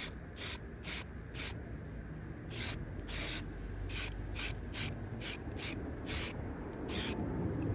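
Aerosol spray can of clear lacquer hissing in a dozen or so short bursts, one a little longer about three seconds in: a light dusting coat being sprayed over a car body repair.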